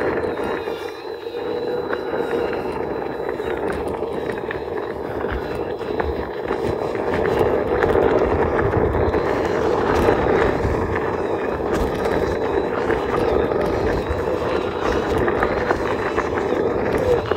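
Steady propeller hum of a small camera drone, with a low rumble underneath that rises and falls.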